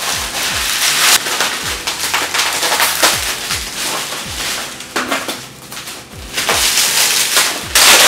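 Bubble wrap and plastic packaging crackling and tearing as it is pulled and ripped off a parcel by hand, with background music with a steady beat underneath.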